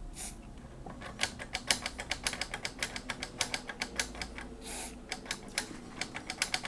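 Contact cleaner hissing briefly from a spray can through a straw nozzle, then a long run of quick, irregular clicks from the oscilloscope's switches being worked to spread the cleaner over their dirty contacts. A second short hiss of spray comes about five seconds in.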